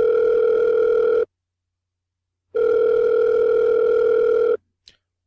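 Telephone ringing tone heard down the line as a call rings through before it is answered: a steady buzzing tone that stops about a second in, then sounds again for about two seconds.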